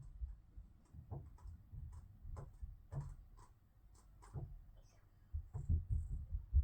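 Dull thuds and footfalls from the flat above, heard through the ceiling as irregular low knocks about two a second, heavier near the end.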